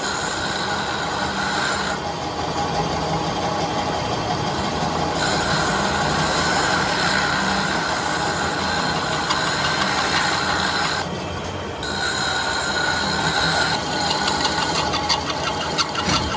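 Metal lathe boring the bore of a forged tractor PTO shaft yoke. The cutting tool gives a steady high squeal over the machine's running noise. The squeal comes and goes as the cut varies, drops out briefly about two-thirds through, and turns into fast rattling clicks near the end.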